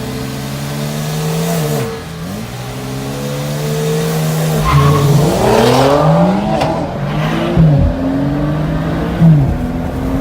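BMW 335i turbocharged inline-six engines racing hard, their pitch climbing and falling several times.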